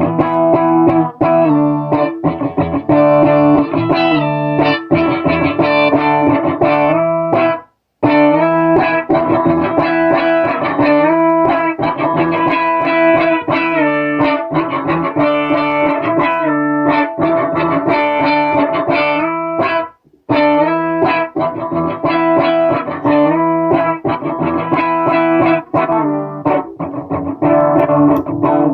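Electric guitar played through a Donner Harmonic Square pitch-shifter pedal, with each note doubled by its pitch-shifted copy. The playing breaks off briefly twice, about 8 and 20 seconds in.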